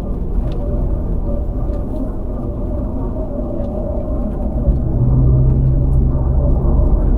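3-door Land Rover Freelander driving: a steady low rumble of engine and road noise. About four and a half seconds in, a deeper hum comes in and the sound grows louder for a couple of seconds.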